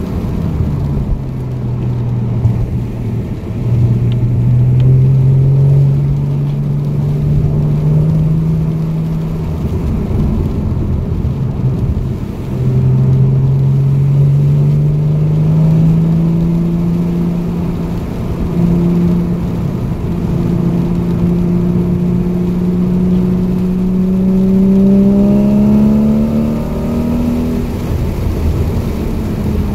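A car's engine pulling hard in long climbs of rising pitch, the revs dropping sharply about ten seconds in and again near the end, as it laps a wet race track over a steady hiss of tyre spray and wind.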